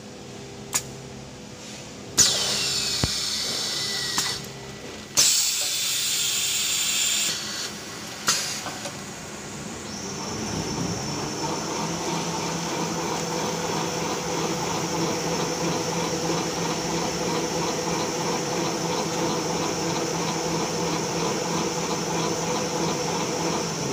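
JT-SLT-900 thermal paper slitter rewinder being started: a click, two loud hissing blasts of a couple of seconds each, and another click. From about ten seconds in the machine runs steadily, with a hum and a high whine.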